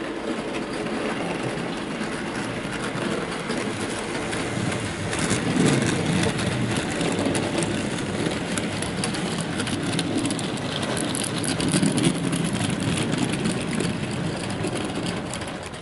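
OO gauge model train of coal wagons running past on the layout's track, wheels clicking steadily over the rail joints with the hum of the locomotive's motor.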